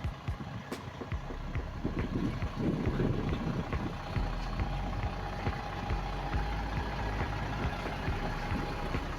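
A motor vehicle's engine running steadily, with many scattered small clicks and knocks over it.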